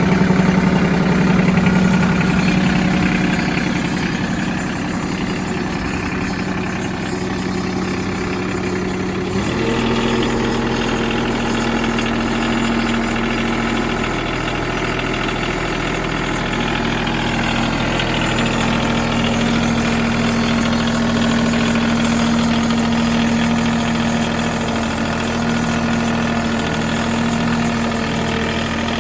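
Ford 1720 tractor's three-cylinder diesel engine running at idle. About nine seconds in, the engine speed steps up slightly, then it runs steadily at the higher speed.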